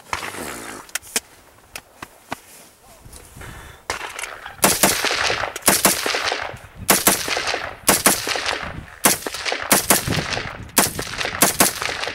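AR-15 rifle firing semi-automatic, about a dozen sharp shots at an uneven pace of roughly one or two a second, each with an echoing tail, starting about four seconds in. Before the shots, a few faint clicks.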